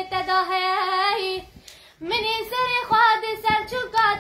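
A young girl singing a Kurdish song unaccompanied in a high voice, holding long notes with wavering ornaments. She breaks off briefly for a breath about a second and a half in, then sings on.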